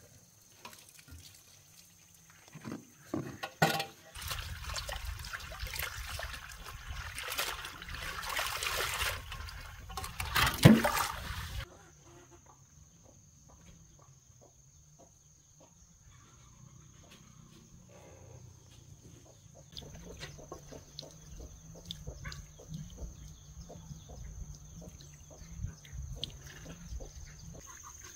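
Water pouring or splashing for about eight seconds, starting about four seconds in and stopping abruptly, with a sharp knock near its end; faint knocks and clatter follow.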